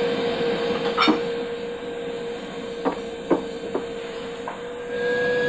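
Household vacuum cleaner running with a steady whine, with a few light knocks along the way.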